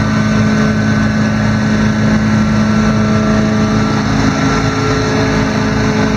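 Small gasoline engine running steadily at a constant speed, with no rise or fall in pitch.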